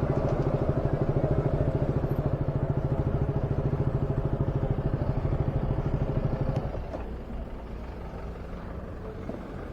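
Motorcycle engine running under way with a fast, even pulsing note; about two-thirds of the way through it eases off and gets quieter.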